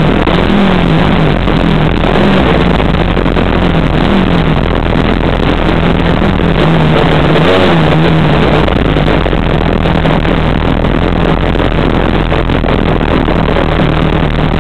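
Car engine heard from inside the cabin, loud and steady, its pitch rising and falling every second or two as the throttle is blipped at low speed.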